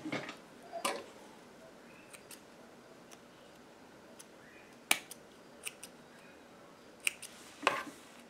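A few small clicks and brief rustles as metal zipper sliders are threaded onto a zipper tape. The sharpest click comes about five seconds in.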